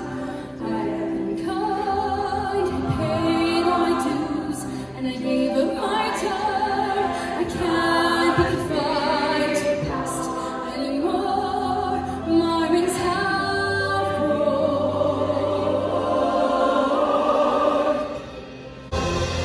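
A large mixed show choir singing a slow passage of long held chords. The sound dips briefly near the end, then comes back in louder.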